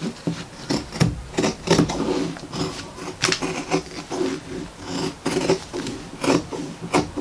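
Fabric scissors cutting through layered African wax print cotton along a straight edge: a steady run of short, crisp snips, about two to three a second, with the blades sliding on the cloth between them.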